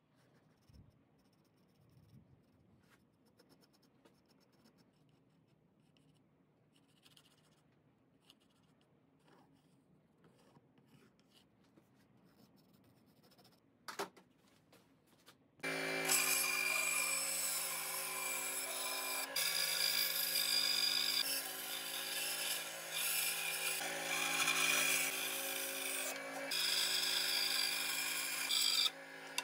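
Faint pencil scratching and handling for the first half. About halfway in, a small benchtop band saw starts and runs steadily, cutting a wooden board along a pencil outline.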